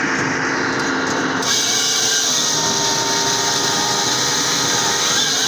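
Big X47 firewood saw-splitter running with a steady hum; about a second and a half in its saw bites into a 33 cm beech log and a loud, even hiss of cutting holds from then on.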